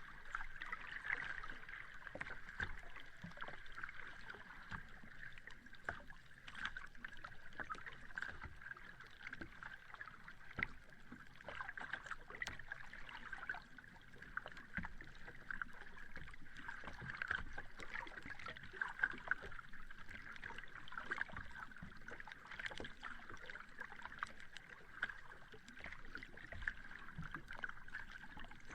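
Sea water lapping, a steady wash with many small splashes and crackles and no big breaking waves.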